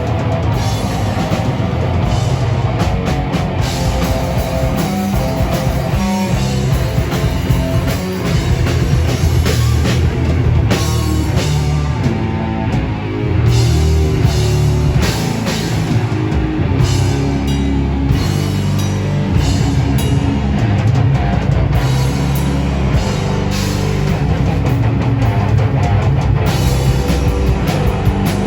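Rock band playing loud live, with drum kit and electric guitars; the music eases slightly for a moment about halfway through, then comes back a little louder.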